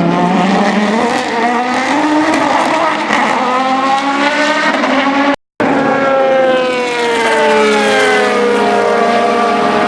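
Aston Martin DBR9 GT1 race car's 6.0-litre V12 engine at full throttle, its pitch climbing for about five seconds. The sound cuts out briefly about halfway, then the engine note comes back with its pitch falling.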